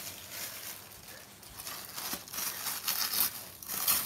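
White packing tissue paper and wrapping rustling and crinkling as hands lift it and pull it aside in a cardboard box, with irregular rustles that grow louder in the second half.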